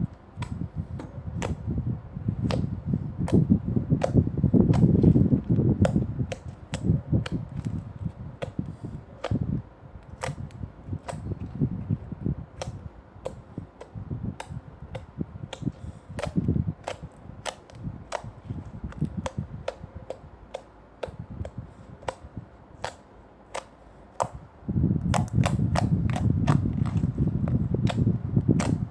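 Slime being squished and pressed by hand, with many sharp pops and clicks of air pockets bursting. A dense low squelching is heavy for the first ten seconds or so and returns near the end, with only scattered pops in between.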